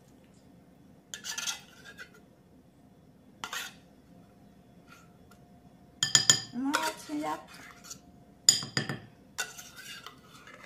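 Metal spoon scraping tuna out of a tin can and clinking against the can and a glass bowl, in short bursts that grow louder and busier in the second half.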